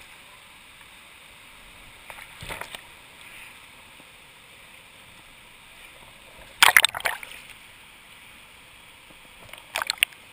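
River water splashing and sloshing close against a camera held at the surface of a pool: a short splash about two and a half seconds in, the loudest burst around seven seconds in, and another near the end, over a steady rush of flowing water.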